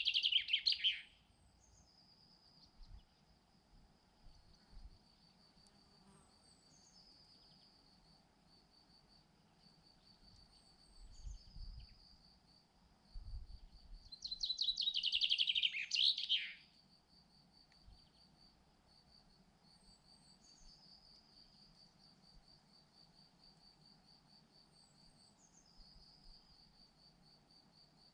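Steady high insect buzzing in a pine wood, with a songbird twice singing a loud phrase of quick notes that fall in pitch, ending about a second in and again about halfway through. Faint short high chirps from another bird repeat every few seconds, and a couple of low rumbles come shortly before the second song.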